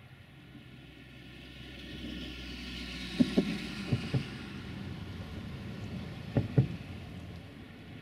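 Road traffic passing on the concrete bridge overhead: a rising and falling rush, with three sharp double thumps as a vehicle's front and rear axles cross the bridge's joints.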